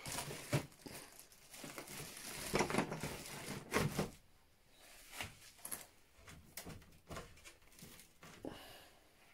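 Rummaging among bottles and containers of cleaning fluid: irregular knocks, clunks and rustles, busiest between about two and a half and four seconds in.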